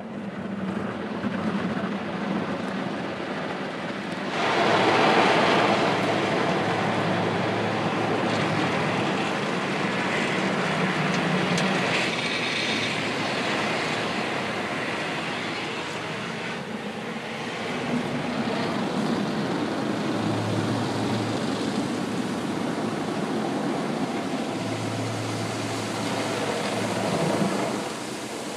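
Automatic car wash heard from inside the car: water spray and blue wash brushes working over the windows and body, a continuous rushing noise with a low machine hum that comes and goes. It grows louder about four seconds in.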